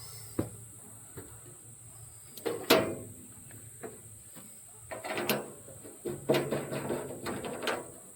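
Clattering knocks and scrapes in three bursts: about two and a half seconds in, about five seconds in, and a longer run from a little after six seconds. Something is being handled and moved. A steady high insect drone runs underneath.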